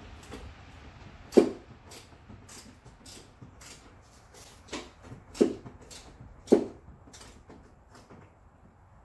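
Scattered knocks and clicks from hands and tools working behind a car's plastic front bumper cover to free it, with four louder thumps: about a second and a half in, then three close together between about five and six and a half seconds.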